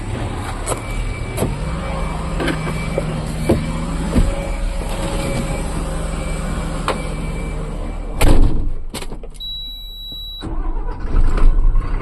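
Truck's diesel engine idling steadily, with scattered knocks and clicks and one loud bang about eight seconds in. Near the end the engine sound drops away for about a second, leaving a thin steady high tone, then comes back louder.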